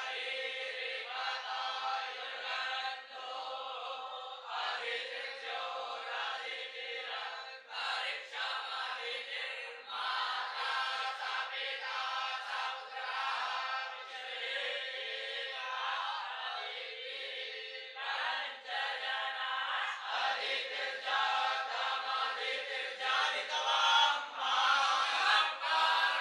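A group of young Vedic students chanting Sanskrit mantras together in unison, phrase after phrase with short breaks between. The chant grows somewhat louder in the last few seconds.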